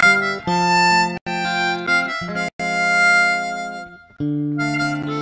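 Background music: a melody of long held notes over an accompaniment, cut off abruptly for a moment twice and dipping briefly near the end.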